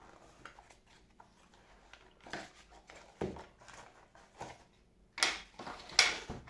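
Hands rummaging through a box and its packaging: scattered soft rustles and light knocks, with two louder, brief rustling scrapes about five and six seconds in.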